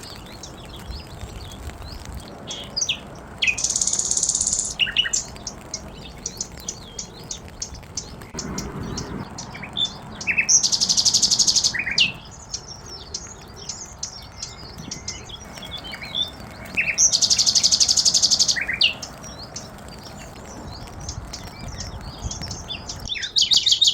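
Birds singing: many short high chirps, broken three times by a loud, rapid, buzzy trill about a second and a half long, roughly every six to seven seconds.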